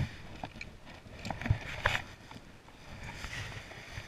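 Handling noises on a plastic sit-on-top kayak as a redfish is released from a lip gripper: a few sharp knocks and clatters, the loudest nearly two seconds in.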